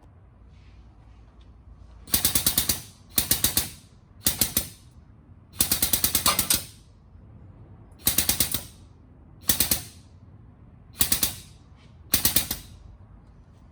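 A pneumatic impact tool hammering in eight short bursts, each a rapid rattle of blows lasting under a second, with brief pauses between them.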